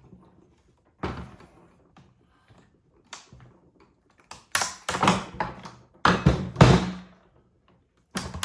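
A series of hard knocks and clunks as parts of a Tesla onboard charger are pried and broken apart during a teardown. There are single knocks about a second in and again about three seconds in, then louder clusters of several knocks past the middle.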